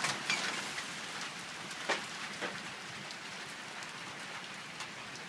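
Steady rain from a small thunderstorm pattering down, with a few louder single drops standing out, the sharpest about two seconds in.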